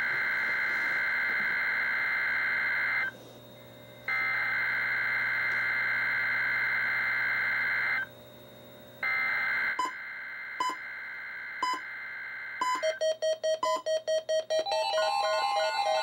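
NOAA Weather Radio SAME header: three long bursts of harsh, buzzing two-tone digital data, separated by one-second gaps, announcing a Required Weekly Test. From about ten seconds in the weather radios start to respond: a few single beeps about a second apart, a quick run of pulsing beeps, then in the last seconds several radios' alert beeps sound together at different pitches.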